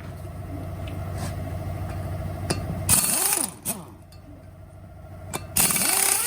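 Pneumatic wrench run in two short bursts, about three seconds apart, each spinning up and down with a hiss of exhaust air, over a steady machine hum.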